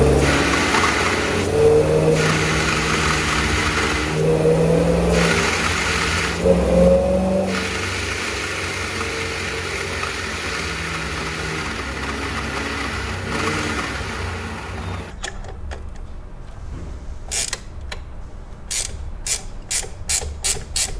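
Supercharged C5 Corvette V8 idling and being blipped three or four times, with an odd low tone, like a whoopee cushion, that rises and falls with each blip. The tone comes from the open blow-off valve on the charge pipe, which the owner suspects is air passing over the intake air temperature sensor next to it. The engine stops about three-quarters of the way through, and a quick series of sharp clicks follows.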